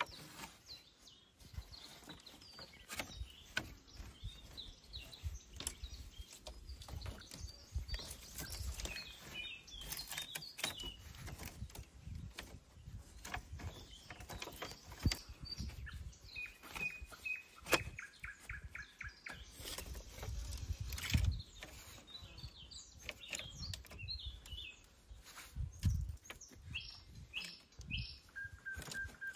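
Birds chirping, with a run of quick repeated notes just past the middle and another short call near the end, over scattered sharp knocks, clicks and low thumps.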